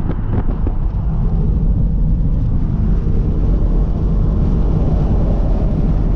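Steady cabin noise of a 2006 Mazda MX-5 Miata (NC) cruising at highway speed: its 2.0-litre four-cylinder engine humming evenly under a constant rush of tyre and wind noise.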